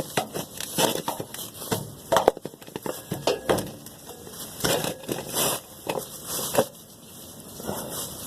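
Irregular clicks, knocks and scrapes of hands fitting a new gasket to a leaking car exhaust and handling the metal parts.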